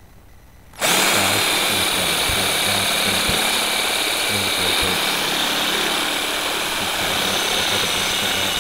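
Cordless drill starting up just under a second in and running steadily with a high whine, its bit boring out the metal locator pin of an old sliding-door roller bracket.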